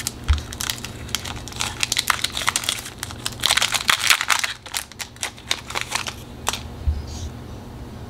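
A foil Pokémon card booster pack being torn open and crinkled by hand: a run of sharp crackles and rustles, densest in the middle and dying away a couple of seconds before the end.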